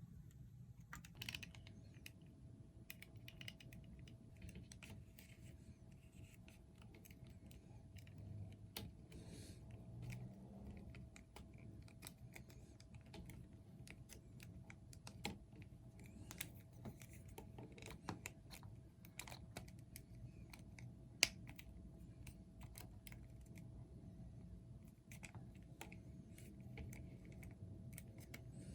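Faint, irregular small clicks and taps of hard plastic being handled: an action figure and its packaging or accessory parts, with one sharper click about two thirds of the way through. A faint steady hum runs underneath.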